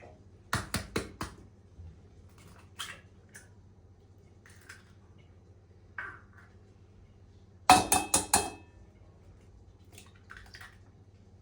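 Dishes and cutlery clinking while being handled: a quick run of four knocks about half a second in, light scattered taps, then another run of four or five clinks with a brief ring about eight seconds in.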